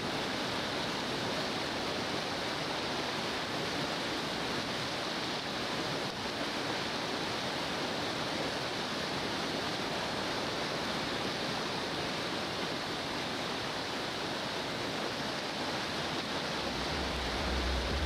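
Whitewater rapids rushing: a steady, even rush of churning river water. Near the end a low, steady hum comes in under it.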